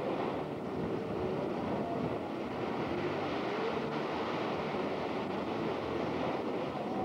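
Beach ambience: steady wind noise on a camcorder microphone mixed with the wash of surf.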